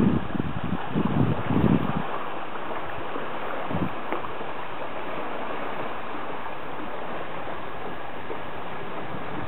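Wind gusting on the microphone in low rumbles for about the first two seconds, over a steady rushing hiss of outdoor wind that carries on alone afterwards.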